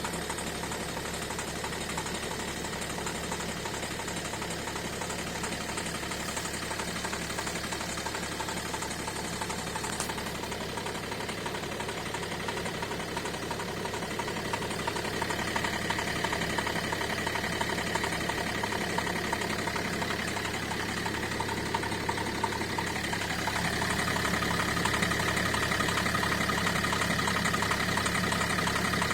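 Renault Scenic II's 1.5 dCi four-cylinder diesel engine running with a knock. The steady engine sound grows louder about halfway through and again near the end.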